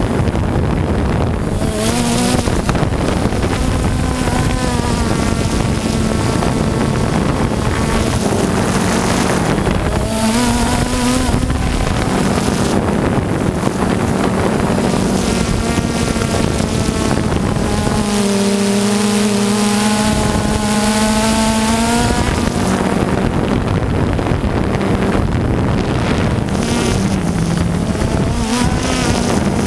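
Electric motors and propellers of a radio-controlled aircraft, heard from its onboard camera, humming steadily with a pitch that rises and falls several times as the throttle changes. Wind rushes across the microphone throughout.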